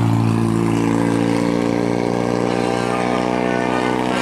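Heavy vehicle's engine running close by with a loud, steady low drone of even pitch.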